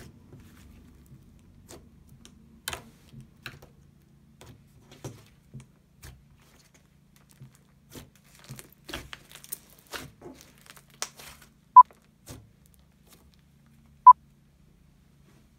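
Puff slime being kneaded and pressed by hand, giving scattered soft crackles and pops. Near the end, two short, loud beeps about two seconds apart, the countdown beeps before an inflation timer starts.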